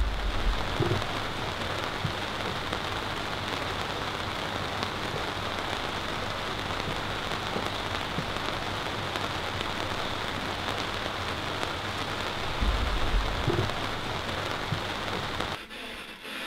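Steady rain, with two low rumbles, one at the start and another about thirteen seconds in. It cuts off suddenly near the end.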